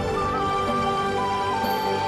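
Soft background music: gentle sustained notes with a melody stepping between pitches over changing chords.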